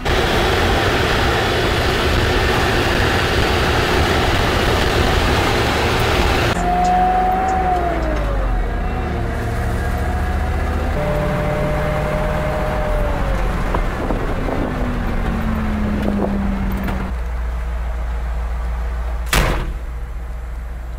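Box truck heard from inside its cab: loud road and engine noise at highway speed for the first six seconds or so, then quieter running with a few whines that fall in pitch. One sharp knock comes near the end.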